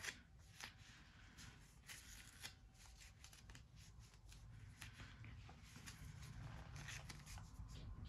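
Faint, irregular crackling and ticking of athletic tape being pulled off the roll and pressed around the ankle.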